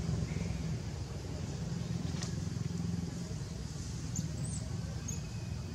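A steady low engine hum with no change in pitch, and a faint click about two seconds in.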